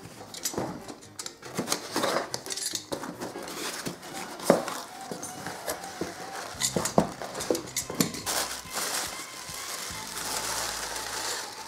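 Hands handling plastic bags, a cardboard box and crumpled tissue paper packing: a run of crinkles, taps and knocks, turning into a denser, steadier paper rustle near the end.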